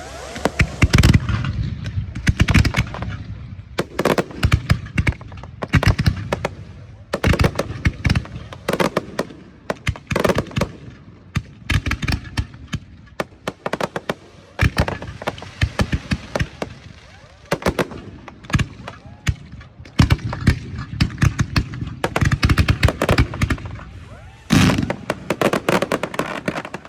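Daytime fireworks display firing: volleys of sharp reports in rapid clusters, with short lulls between them.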